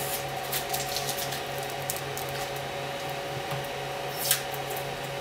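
Steady hum of a Creality CR-10 3D printer's fans, with scattered faint clicks and scrapes as printed plastic balls are worked loose from the print bed, where the plastic is still stuck fast. One sharper click comes about four seconds in.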